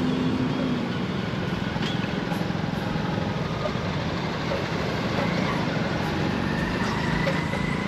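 Hero Splendor XTEC motorcycle riding at low speed, its single-cylinder engine running steadily under wind and road noise.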